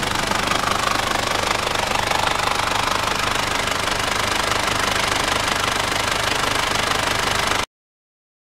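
Mitsubishi 4M40 2.8-litre turbodiesel four-cylinder engine running steadily with its diesel clatter. The sound cuts off suddenly near the end.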